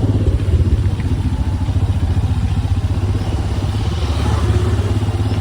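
Royal Enfield Himalayan's single-cylinder engine running with a steady low throb.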